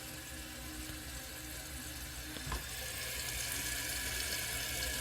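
2017 Kohler Wellworth toilet tank refilling after a flush: a steady hiss of water through the fill valve, with a brief knock about halfway.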